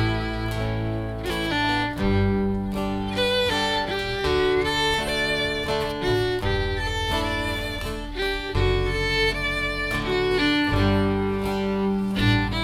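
Live acoustic string-band instrumental: fiddle playing a quick melody over guitar accompaniment and a steady bass line.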